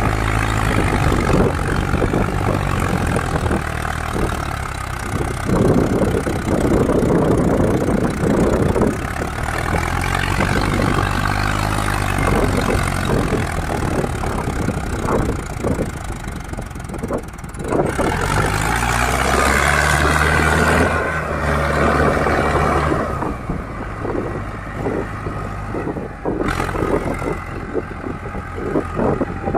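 Mahindra Arjun tractor's diesel engine working hard as it pulls a heavily loaded soil trolley up a slope, its revs rising and falling, with a clear climb in engine pitch about two-thirds of the way through.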